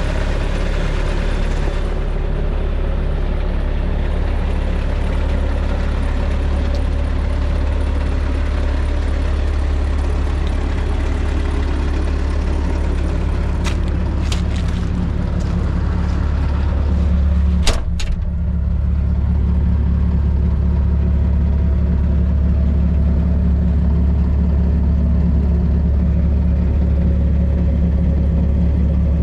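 Bobcat 773 skid steer's diesel engine running steadily. A few light clicks come about halfway through, then one sharp click, after which the engine sounds slightly duller.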